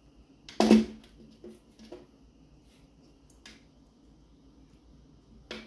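Plastic wiring connectors being handled and plugged together: one loud sharp snap a little under a second in, a few lighter clicks after it, and another click near the end.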